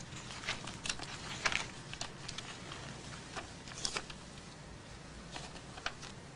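Paper rustling as sheets and the pages of a spiral-bound presentation book are handled and leafed through: a series of short, irregular rustles.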